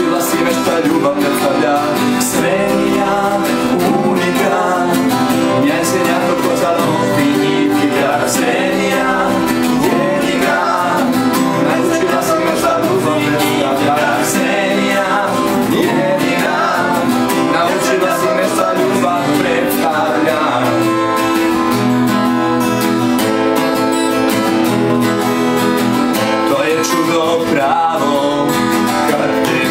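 Two acoustic guitars played together, strummed chords with picked lines, and a man singing along.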